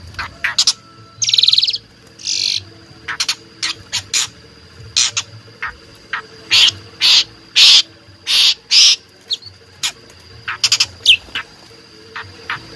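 Asian pied starling (jalak suren) calling in a rapid, chattering series of short, harsh, rasping notes and sharp squeaks, with brief pauses between them.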